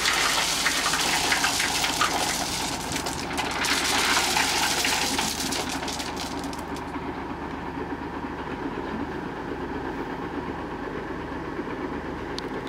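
Diesel dump truck running while loose stone pours and clatters out of its bed, a rushing noise with scattered knocks. After about seven seconds the pouring stops and only the engine is left, idling steadily.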